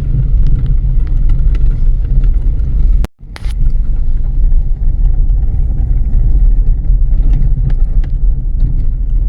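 Vehicle driving on a rough, potholed road: a steady low rumble of road and engine noise with small knocks. It cuts out briefly about three seconds in.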